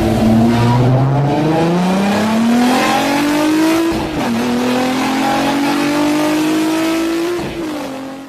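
Car engine under hard acceleration, heard from inside the cabin, its pitch climbing steadily through the gears. It upshifts with a sharp drop in pitch about four seconds in and again near the end, then fades out.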